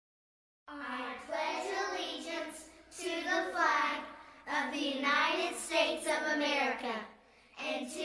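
A child's voice reciting the opening of the Pledge of Allegiance in a slow, sing-song cadence, starting after a brief silence less than a second in.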